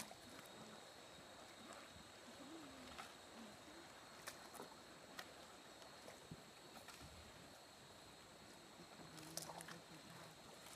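Near silence: a faint steady hiss with a thin, high-pitched steady tone, broken by a few faint scattered clicks.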